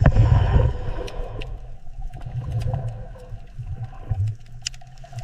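Sea lion calling with low, pulsing vocalizations, loudest in the first second and fading toward the end.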